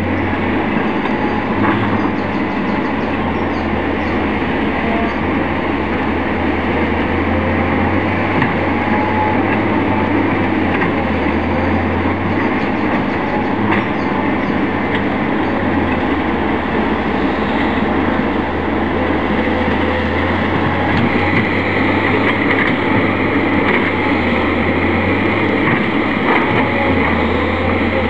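Heavy diesel engines running steadily: a diesel locomotive idling at the head of a spoil train and a Volvo tracked excavator working alongside. A deep low engine hum swells and drops every few seconds.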